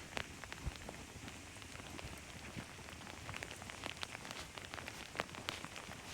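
Sleet falling: many small, irregular ticks of ice pellets striking surfaces over a faint steady hiss.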